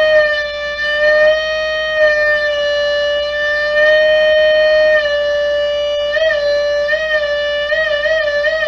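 Electric guitar with a magnetic sustainer pickup holding one high note that rings on without fading. The pitch wavers briefly with vibrato about six seconds in and again near the end.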